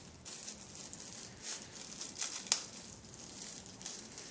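Soft crinkling and rustling of a thin plastic grocery-bag packet handled in the fingers as a rubber band is wound around its gathered neck, with a few small sharp ticks.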